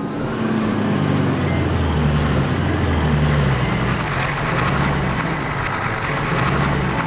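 Heavy vehicle engine running, with low engine tones that shift in pitch under a steady mechanical noise.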